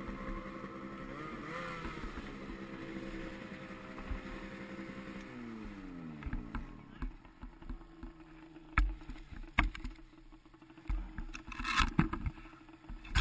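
Snowmobile engine running at steady revs, then winding down about five seconds in as it drops back toward idle. A low idle hum carries on, with a few sharp knocks and a brief rustle near the end.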